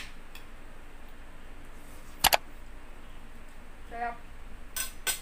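A metal spoon clinking against a ceramic plate during a meal: a quick double clink about two seconds in and two more sharp clinks near the end.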